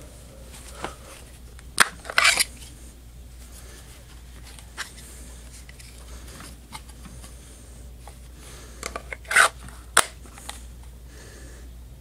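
Handling noise from a plastic handheld sound level meter moved in hand close to the microphone: two sharp clicks, near 2 s and near 10 s, each paired with a short scraping rub of plastic against skin.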